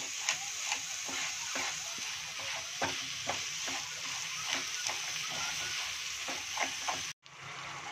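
Wooden spatula scraping and pressing grated boiled potato and sugar around a frying pan over a steady sizzle of hot ghee, in strokes about twice a second, as the sugar cooks down to melt. The sound cuts out briefly near the end.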